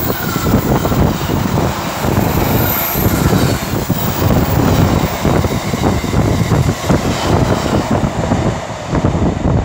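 Container wagons of a freight train hauled by a Freightliner Class 66 rolling past close by, a loud steady run of wheel noise with many knocks from the wheels on the rails. The noise thins near the end as the last wagon goes by.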